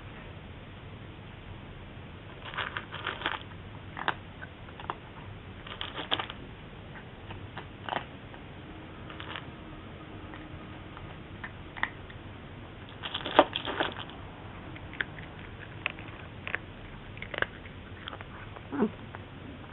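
A cat eating dry kibble: irregular crunches and clicks, with the loudest cluster of crunches about two-thirds of the way through.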